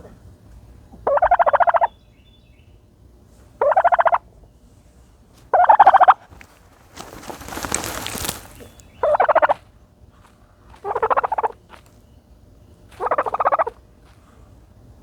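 Turkey giving six short, rapid rattling calls, about two seconds apart, while dust bathing. Near the middle comes a longer scratchy rustle.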